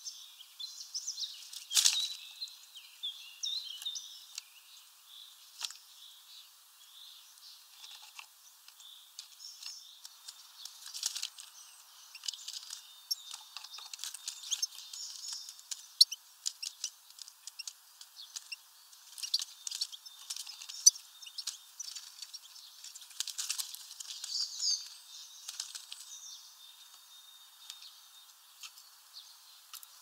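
Small songbirds chirping and twittering, with sharp clicks and knocks scattered through, the loudest about two seconds in. The sound is thin and high, with no low end.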